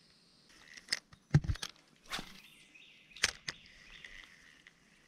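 Short swishes and clicks from a light spinning rod and reel being cast and handled, the loudest a thump about a second and a half in, over a steady high buzz of insects.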